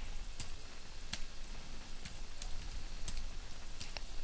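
Typing on a computer keyboard: a handful of separate, irregular keystrokes.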